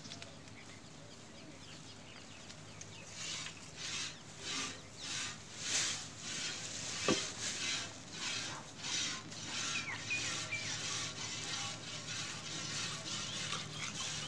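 Milk squirting from a cow's teats into a steel bucket during hand-milking: a rhythmic hiss of about two squirts a second, starting about three seconds in. One short sharp tap near the middle.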